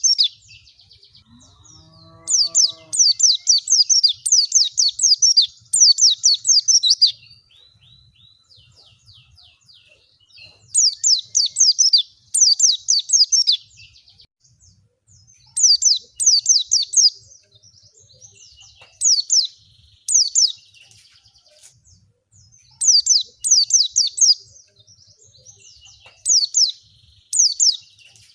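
White-eye (pleci) song as used in a lure recording: bouts of fast, high, downward-sweeping chirps, each one to three seconds long, repeated with short pauses between.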